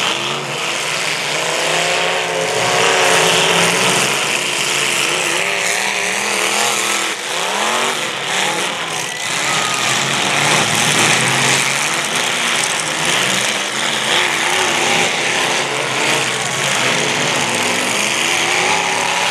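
Several demolition derby cars' engines running hard and revving, their pitch rising and falling over one another.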